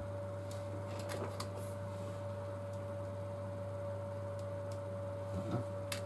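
A few faint light clicks and ticks of small drone camera and gimbal parts and a thin cable being handled, about a second in and again near the end, over a steady low hum with a thin steady tone.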